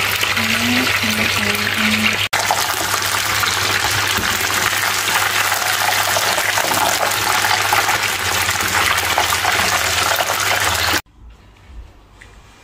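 Chicken pieces deep-frying in a pot of hot oil, a loud, steady sizzle that cuts off suddenly near the end.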